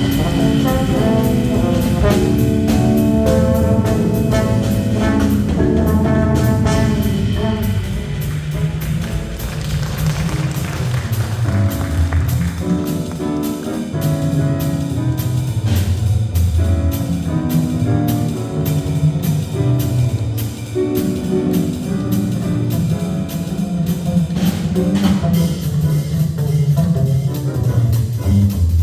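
Small jazz combo playing, with drum kit keeping time under the melodic lines.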